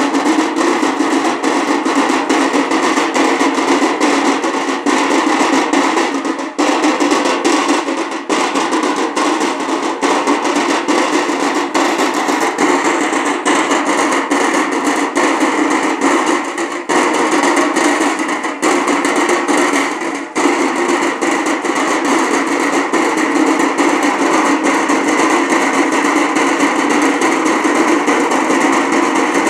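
Drums beaten loudly in a fast, continuous rhythm, with a few brief breaks.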